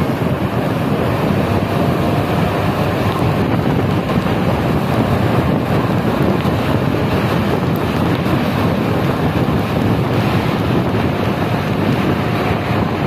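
Steady rushing wind on the microphone from a moving bus window, mixed with the hiss of heavy rain and road noise.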